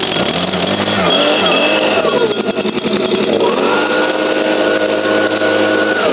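STIHL leaf blower's engine being throttled up and down a few times, then held at high revs with a steady rush of air from about three and a half seconds in.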